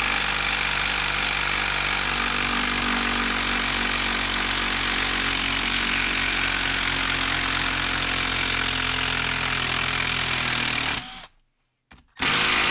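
Milwaukee M12 brushed 12-volt impact driver hammering steadily as it backs a long Timberlok screw out of a log. It stops for about a second some 11 seconds in, then starts hammering again on the next screw.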